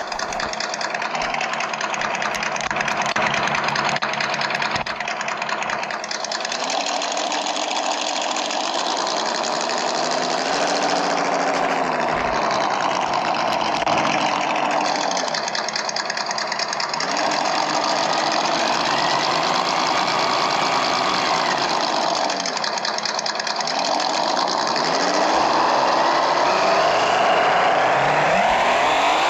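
Simulated engine sound from a Reely Double Boost Sound Simulator Pro sound module, played through its twin speaker: a ticking idle that revs up and back down several times.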